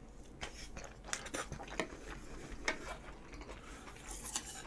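Close-miked chewing of a mouthful of curry rice, with scattered small wet clicks and smacks from the mouth.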